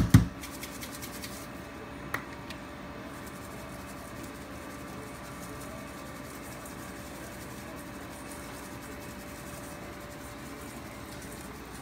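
A couple of dull knocks at the very start and a single click about two seconds in. After that comes a low, steady room hum with a faint steady tone.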